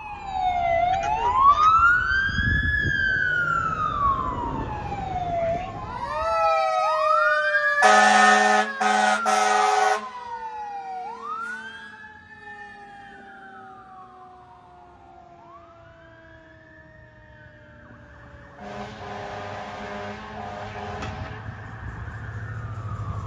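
Sirens of responding fire apparatus wailing, their pitch rising and falling in long sweeps, more than one siren overlapping. About eight seconds in a fire engine air horn blasts, three blasts with short breaks; the sirens then fade away and return, with a fainter horn sounding again near the end.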